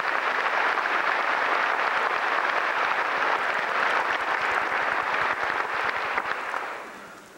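Audience applauding: steady clapping that dies away near the end.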